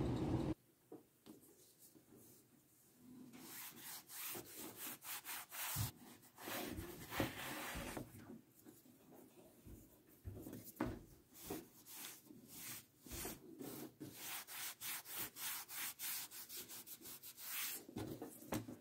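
A steady noise cuts off under a second in. After a short pause, leather strips are worked by hand on a wooden workbench, making rubbing strokes in short runs, about two a second near the end.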